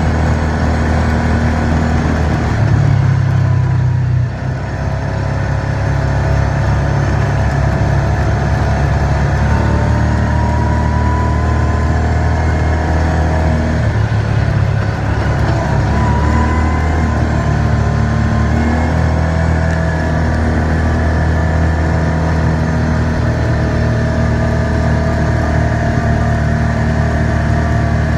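Engine of a side-by-side off-road vehicle running steadily while under way. Its note dips briefly about four seconds in and again about halfway through as the throttle eases off and picks up.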